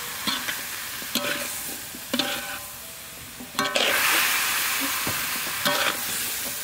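Vegetables sizzling in a wok while a metal spatula stirs and scrapes them, clanking against the pan about five times with a short metallic ring. The sizzle gets louder about three and a half seconds in.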